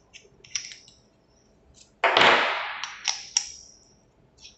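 Metal flashlights being handled: a few light clicks, then a sudden loud clack about two seconds in that fades over about a second, followed by three quick clicks.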